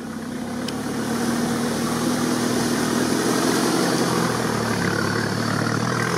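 Modified UAZ off-roader's engine running steadily under load as it crawls through a reed marsh, growing louder over the first two seconds and then holding.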